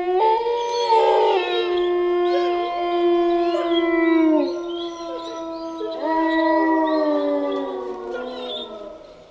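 Several wolves howling together: long, held howls at different pitches overlap, some sliding down as they end. A fresh howl rises about six seconds in, and the chorus fades near the end.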